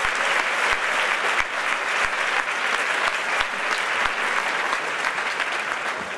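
Audience applauding, a dense, sustained clapping that eases slightly in the last couple of seconds.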